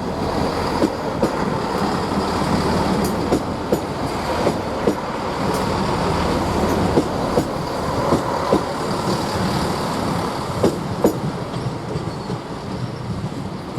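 A train running past along the track, its wheels clicking sharply over rail joints about twice a second over a heavy rumble, with a faint high wheel squeal.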